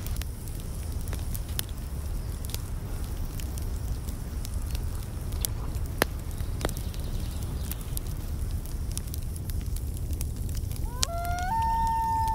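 Wood fire burning in a small stove: a steady low rumble with scattered sharp crackles and pops. Near the end a simple melody of held tones, stepping up and down in pitch, starts over it.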